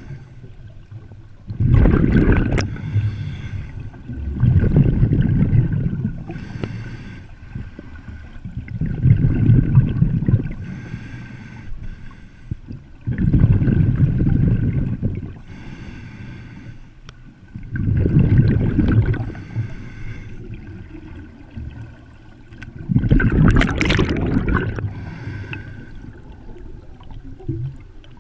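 Scuba breathing through a regulator underwater: a soft hiss on each breath in, then a rumbling, burbling rush of exhaled bubbles, about every four to five seconds, six times strongly and once more faintly near the end.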